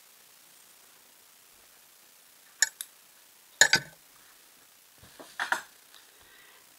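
Small metal scissors clicking: two quick clicks, then a louder knock about a second later as they are put down. Soft handling noise of the crocheted acrylic fabric follows near the end.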